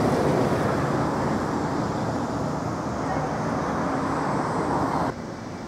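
Outdoor street ambience with steady traffic noise, dropping suddenly to a quieter hum about five seconds in.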